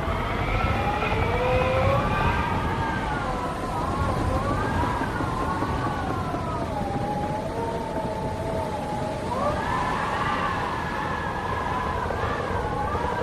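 Wind howling around a barn: several wavering, whistling tones that slowly rise and fall together, over a low rumble of gusts. The tones step up in pitch about three-quarters of the way through.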